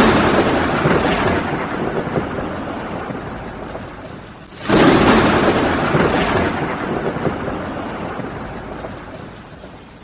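Thunder during a night thunderstorm: a loud clap at the start and a second about five seconds in, each breaking suddenly and rolling off in a long fading rumble, with a hiss of rain beneath.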